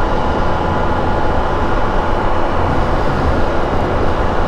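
Steady running noise of a Can-Am Spyder RT Limited three-wheeler cruising on the road: the Rotax three-cylinder engine's low hum under a constant wash of drivetrain, tyre and road noise.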